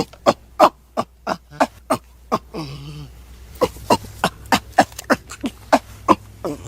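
Ape-man vocal effect made from monkey and ape calls: a run of short, sharp calls about three a second, a lower drawn-out grunt about halfway through, then another run of short calls. A faint low hum lies under them.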